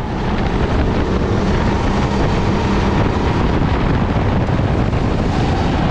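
Sodi kart's engine running at a steady racing pace, heard through the onboard camera with wind rushing over the microphone. It comes up in level over the first half second, then holds steady.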